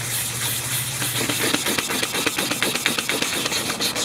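400-grit sandpaper on a hand sanding block rubbing along an O1 tool steel knife blade in quick back-and-forth strokes. A steady low hum runs under it for the first second and a half.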